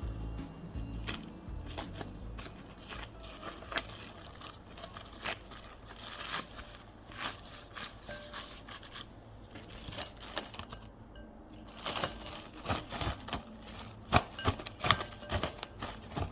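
Rustling, crinkling and light clicks and scrapes from hands at work on the baking counter, irregular at first and busier and louder over the last few seconds.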